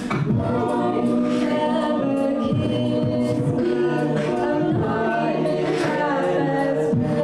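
Collegiate a cappella group singing without instruments: several voices holding layered harmonies, with a higher voice moving over them.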